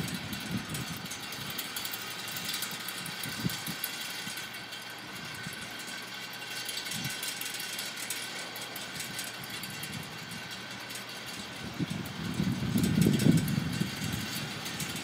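Wind blowing across the microphone over a steady outdoor hiss, with low rumbling gusts that grow stronger about twelve seconds in.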